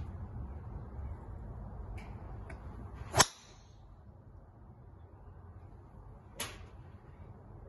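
Golf driver striking a teed ball: one sharp, loud crack about three seconds in. A fainter click follows about three seconds later.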